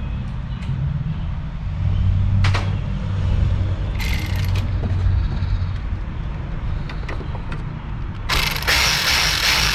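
Hand-tool work in a car's engine bay: a ratchet and socket turning, with a sharp click and metal clatter over a low rumble. A loud rush of noise comes near the end.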